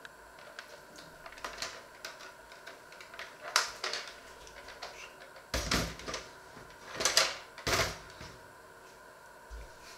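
Irregular knocks, clicks and thuds of things being handled and set down in a kitchen, the heaviest knocks about six and seven to eight seconds in.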